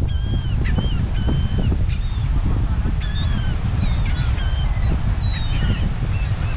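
A flock of gulls calling, with many short, arched squawks, several a second, over a steady low rumble of wind on the microphone and surf.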